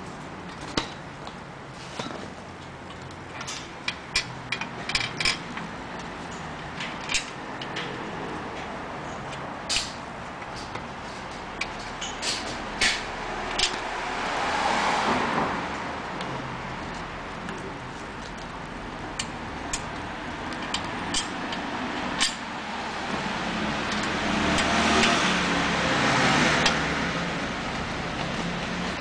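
Scattered metallic clicks and taps of hand tools and hardware as a brace is fitted to a motorbike's front forks, over a steady low hum. Two slow swells of rushing noise rise and fade about fifteen and twenty-five seconds in.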